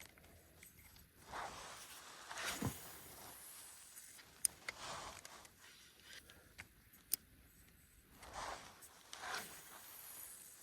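Spinning tackle being worked while jig fishing from a boat: faint whooshes, about five of them, and a couple of sharp single clicks from the rod and reel.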